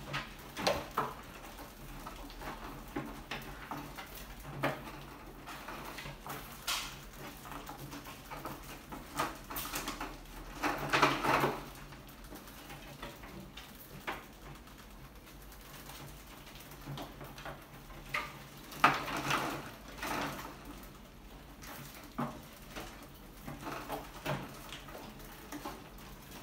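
Rats scrabbling and scurrying over a wire-mesh lid, a glass tank and a wooden ramp: irregular clicks, taps and scratching, with a few longer bursts of scrabbling.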